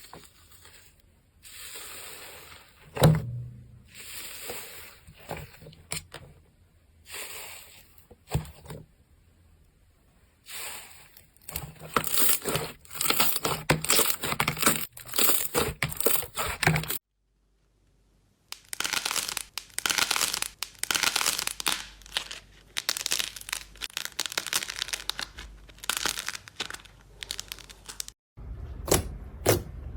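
Slime being handled, with crinkling, crackling pops. The pops come softly and sparsely at first, then in dense rapid runs, and the sound breaks off briefly twice.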